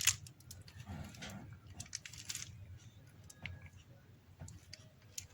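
Light clicks and short rustles of hands handling a phone and its charger cable on a workbench, as the charger is plugged in.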